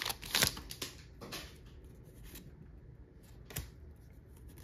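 Foil booster-pack wrapper crinkling in the hands for about the first half second, then soft rustling as the trading cards are drawn out and handled, with one sharp click about three and a half seconds in.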